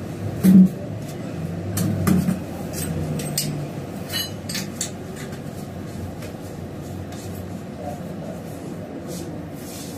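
Scattered metallic clinks and knocks from tools and equipment being handled, with one louder knock about half a second in, over a steady low hum.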